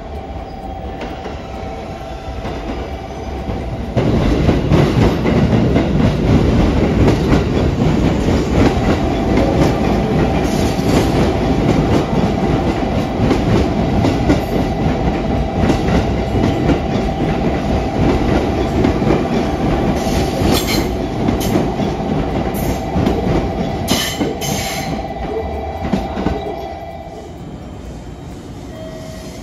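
Train running on the rails: a loud rumble of wheels and running gear that jumps up about four seconds in, with a steady tone over it and a few high squeaks, dropping away again near the end.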